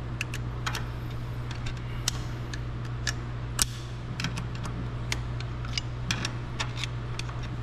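Irregular light metal clicks and scrapes of a flathead screwdriver prying at a snap ring in a final drive brake piston bore, over a steady low hum.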